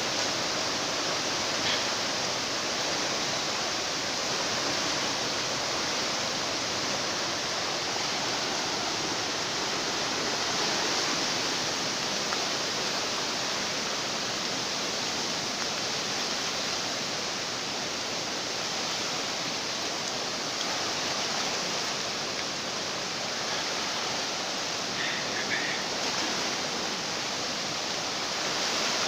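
Steady rushing noise of heavy rain falling and floodwater flowing fast, with no let-up.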